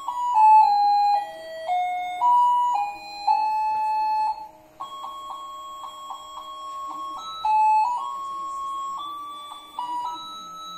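A simple electronic tune of plain beeping notes stepping from pitch to pitch, with a run of quick repeated notes midway through.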